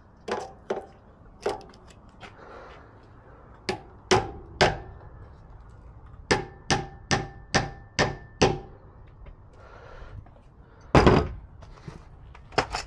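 Claw hammer striking a fixing for a conduit saddle on a rendered masonry wall: a few single blows, then a run of six quick strikes at about two and a half a second, some with a slight ring. A louder clatter comes near the end.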